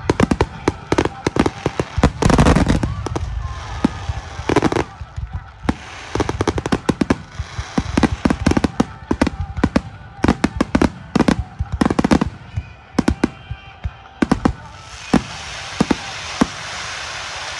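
Fireworks display: a rapid barrage of aerial shells bursting one after another, with several heavier booms among the sharp bangs. Near the end the bangs thin out into a steadier rushing noise.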